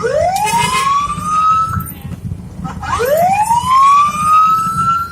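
Escort siren wailing in slow rising sweeps: one climbs over nearly two seconds and breaks off, then a second begins about three seconds in and rises to its top near the end. Underneath is a low engine and road rumble.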